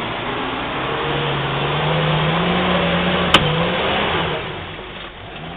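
A 4x4 SUV's engine revving hard under load as it claws up a steep bank out of a mud hole, its pitch rising and then falling away near the end. A single sharp crack sounds a little past halfway.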